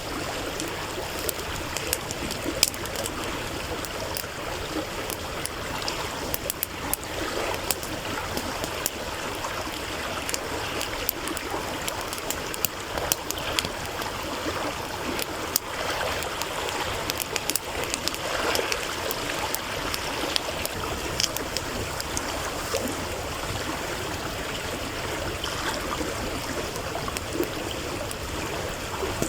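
A stream babbling steadily, over which burning firewood crackles with frequent sharp, irregular pops.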